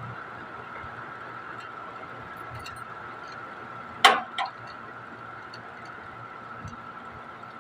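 Steady machine hum with a faint constant high whine, broken about four seconds in by two sharp knocks in quick succession, the first the louder.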